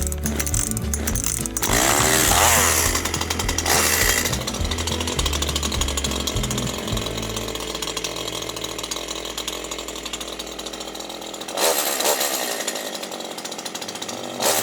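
Zenoah G250 two-stroke chainsaw running, revved up about two seconds in, again around four seconds, and once more near the end, with background music.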